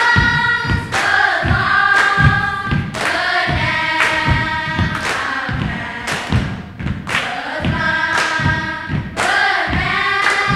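A choir singing long held notes over a steady thumping beat.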